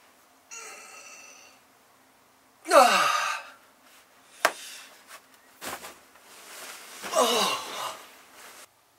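A man sighs twice, each sigh a voiced exhale falling steeply in pitch, the first about three seconds in and the second near the end, with a breathy intake before the first. Between the sighs a laptop lid shuts with a sharp click, followed by a few soft thumps.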